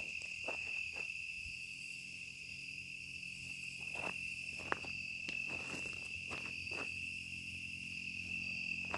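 Crickets chirring in a steady, unbroken high trill, with scattered faint clicks and snaps.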